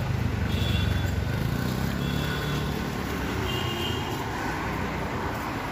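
City street traffic: cars, taxis and motorcycles passing in a steady low rumble, with three short high-pitched tones.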